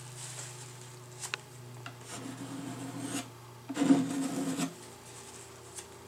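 Metal putty knife scraping and smoothing roof sealant along a roof edge, with a few light clicks and one louder rasping scrape lasting about a second, roughly four seconds in.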